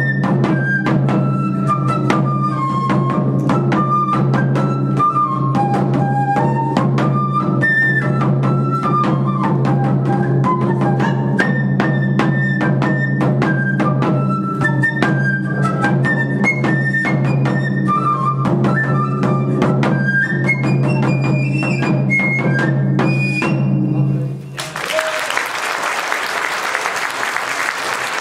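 Japanese side-blown flute playing a quick, stepping melody over rapid taiko drum strokes and a steady low drone. The piece stops about 24 seconds in, and audience applause follows.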